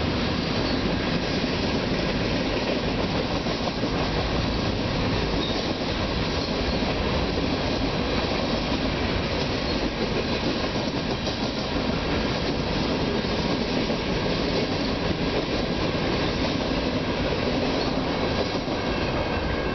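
Freight train boxcars rolling past on steel wheels: a steady rumble and rattle of wheels on the rails, with faint steady high-pitched wheel squeal.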